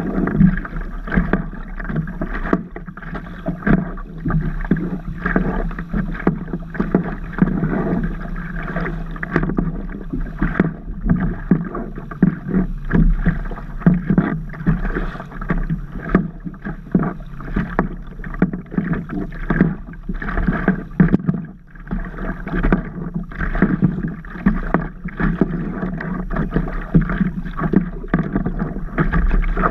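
Water slapping and sloshing against the nose of a stand-up paddleboard right at a board-mounted camera, a dense, irregular run of small splashes without let-up.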